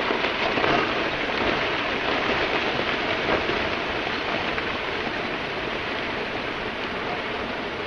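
Rockfall avalanche of lava blocks tumbling down the flank of Santiaguito's lava dome: a continuous rushing clatter of rock that slowly fades.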